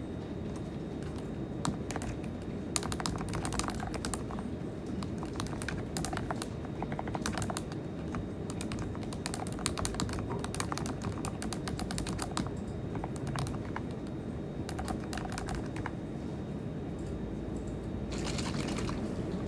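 Typing on a computer keyboard: runs of rapid key clicks broken by short pauses, over a steady low background hum.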